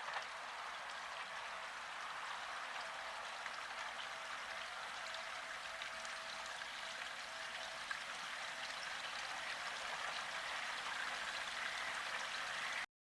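A steady, even hiss with faint scattered specks and no low rumble. A faint thin tone sounds for a few seconds in the middle, and the sound drops out briefly at the very end.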